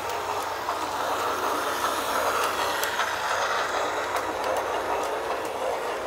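New Bright Holiday Express battery-powered toy train running on its plastic track: a steady whirr of the motor and wheels with faint light clicks, slightly louder in the first half as the cars pass close by.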